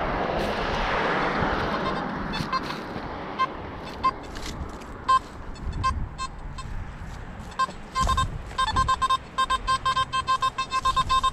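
Metal detector beeping: from about eight seconds in, a fast run of short, same-pitched beeps as the coil passes over ground that holds several metal targets close together. Before that, a rushing noise fades over the first two seconds, with a few scattered clicks.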